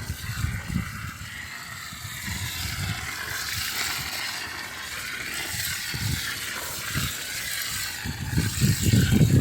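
Water pouring onto dry concrete mix in a plastic sheet, a steady hiss that stops suddenly near the end, with low rustles and knocks from the sheet being handled underneath.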